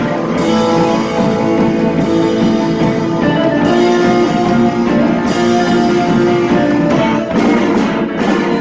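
Live rock band playing: electric guitars over a drum kit, with cymbal crashes every second or two and a quick run of hard accented hits near the end.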